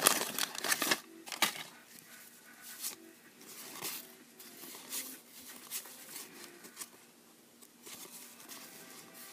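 Wax-paper trading card pack wrapper crinkling loudly for about a second, then quieter rustles and light clicks of cardboard cards being handled and flipped.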